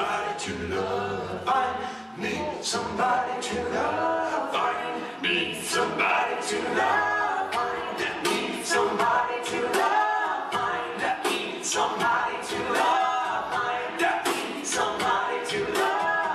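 An a cappella vocal group of four men and a woman singing in close harmony, with beatboxed vocal percussion keeping a steady beat.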